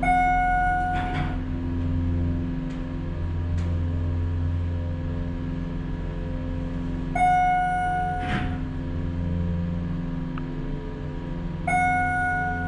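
Schindler MT/300A hydraulic elevator's dry-mounted pump motor running with a steady low hum as the car rises. A single-tone electronic chime sounds three times as the car passes floors: at the start, about seven seconds in, and near the end.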